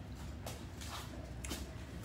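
Faint rustling and soft taps of a person moving about and handling things, about every half second, over a low steady hum.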